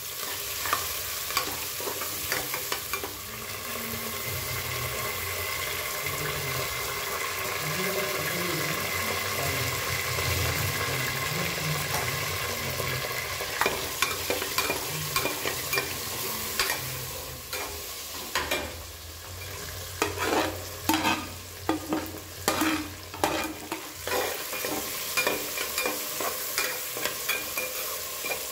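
Food sizzling as it fries in a pan, with a cooking utensil scraping and knocking against the pan as it is stirred. The sizzle is steady at first, and from about halfway through the stirring strokes come thick and fast.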